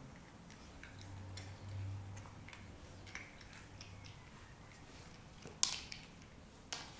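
A cat crunching dry kibble off the floor: scattered small crisp clicks, with one sharper click a little over five seconds in.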